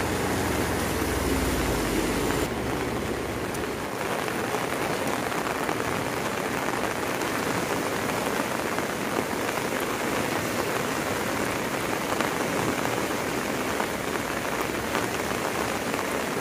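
Steady rain falling on a wet concrete road, an even hiss of drops. A low vehicle engine rumble runs under it for the first two seconds or so, then fades out.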